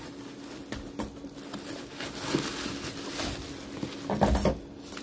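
Bubble wrap rustling and crinkling as a hand digs into a packed box and draws out a cylindrical battery cell, with a dull knock about four seconds in.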